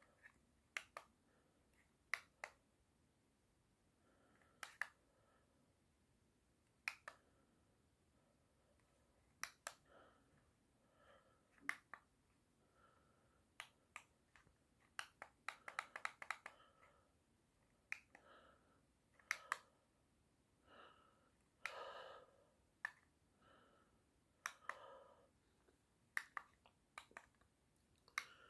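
Plastic buttons of a handheld LED ceiling-light remote clicking as they are pressed, one at a time and now and then in a quick run of presses, with a few faint short hums between the clicks.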